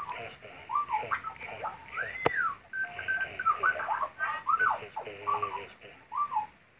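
Droid translator helmet turning the wearer's speech into Star Wars droid-style electronic beeps, chirps and rising-and-falling whistles, one burst of tones per spoken phrase. Heard through an earbud, so it sounds thin and tinny.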